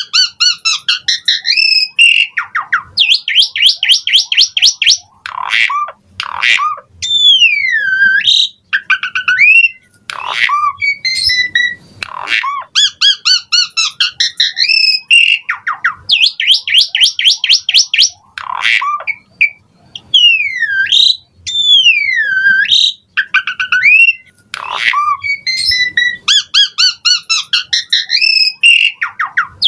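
Asian pied starling (jalak suren) singing loudly. Fast rattling trills alternate with whistles that slide downward and with short harsh clicking notes, in phrases that repeat over and over.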